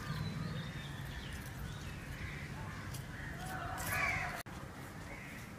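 Crow cawing in the background, a few faint calls and one louder call about four seconds in.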